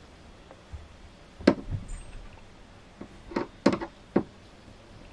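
A few sharp, light knocks and clicks: one about a second and a half in, then three or four close together between about three and a half and four seconds in. They come from a screwdriver tip knocking against a screw and the plastic frame of a caravan window blind.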